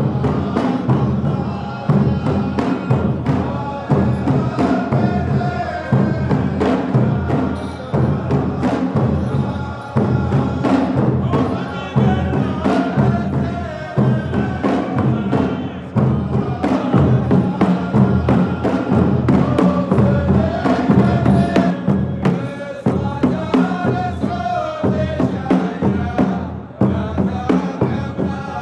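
Saudi ardah sword-dance music: frame drums beating a pattern that repeats about every two seconds, under men's voices chanting a sung verse.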